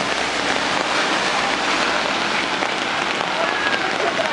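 Heavy rain falling on a wet street and pavement: a dense, steady hiss.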